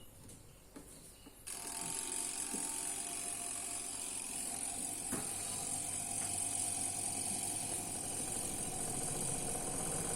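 Sharp Aquamagic twin-tub washing machine's spin-dryer motor, freshly replaced, switching on about a second and a half in and running steadily with a high whine: the spinner turning again.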